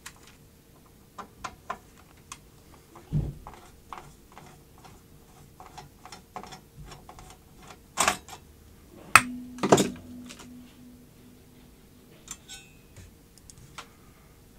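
Metal clicks and clinks from a screwdriver being worked against the steel bracket and chassis of an opened cassette deck, with two louder metallic knocks about two thirds of the way through, the second one ringing briefly. A faint steady hum runs underneath.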